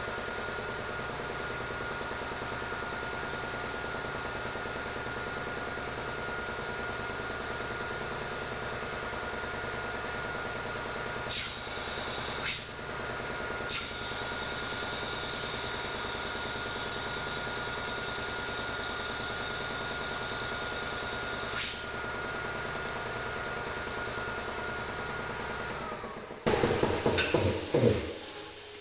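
Electric piston air compressor on a vertical tank running steadily while it builds pressure. From about twelve seconds in, compressed air hisses out of a valve on the line for roughly ten seconds. Near the end the motor's tone falls as it winds down, with a short loud burst of noise as it stops.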